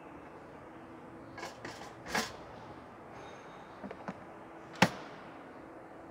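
Plastic air fryer with a drop-down, oven-style front door being handled and closed by hand: a few light clatters and knocks, then a sharp click about five seconds in as the door shuts.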